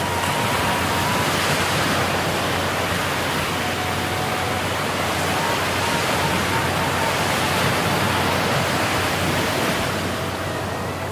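Surf breaking on a sandy beach, a steady, even rushing of waves.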